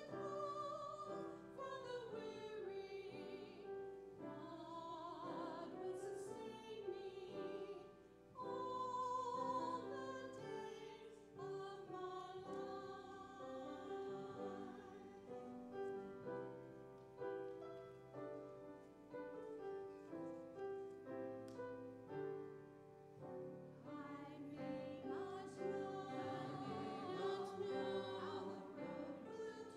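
Classical-style sacred singing with vibrato, accompanied by piano.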